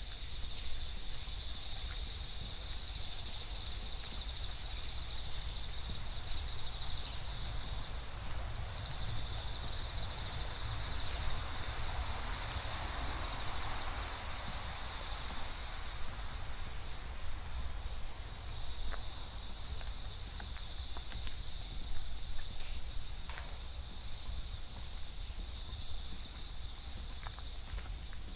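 Night chorus of crickets with bell crickets (suzumushi) singing: a steady, high-pitched ringing that goes on without a break, over a faint low rumble.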